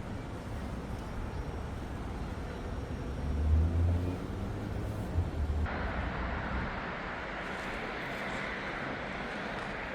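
City street traffic: a motor vehicle's engine rumbles past, loudest about three and a half seconds in. A little past halfway the background changes abruptly to a steadier wash of distant traffic.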